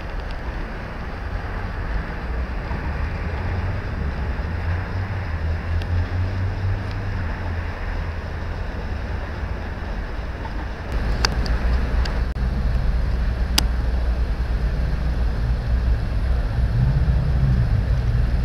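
Steady low rumble of a river boat's engine over wind and outdoor noise, with no sirens sounding. It gets louder about eleven seconds in, and a few sharp clicks come soon after.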